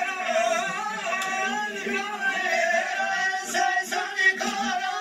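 Men's voices singing an old Kurdish halay dance song, a continuous line of melody with no break. A few sharp clicks come between three and a half and four and a half seconds in.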